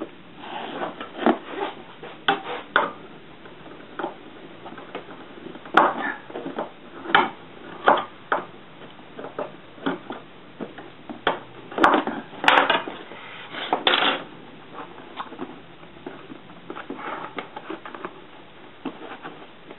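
Corrugated plastic (Corex) sheet crackling and clicking as it is bent and creased against a steel ruler by hand, with irregular knocks and clinks of the ruler on the sheet and workbench, the loudest around the middle.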